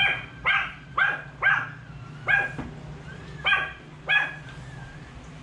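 A small dog barking: seven short, high-pitched barks, five in quick succession over about two seconds, then two more after a pause of about a second, with a steady low hum underneath.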